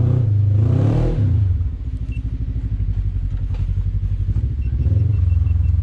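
Side-by-side UTV engine revving up and down in the first second, then running lower with a steady pulse as it crawls on the rock, picking up again near the end. A faint series of short beeps sounds just before the end.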